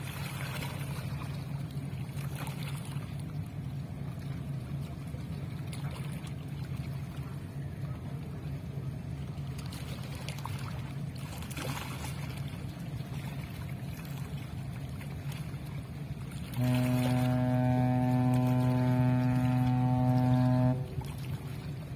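Steady low rumble, then a Pelni passenger ship's horn sounds one long, deep, steady blast of about four seconds, starting abruptly about three-quarters of the way in and cutting off just before the end.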